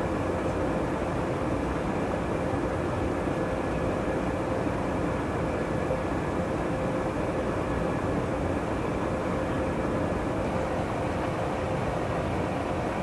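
Steady in-flight cabin drone of a KC-135 Stratotanker: engine and airflow noise heard from inside the tanker, with an even hum running through it.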